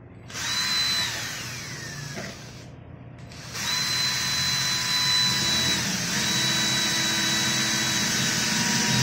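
Handheld power drill boring into the edge of wooden interior panelling. It runs for about a second and then winds down with a falling whine. It starts again about three and a half seconds in and keeps drilling steadily.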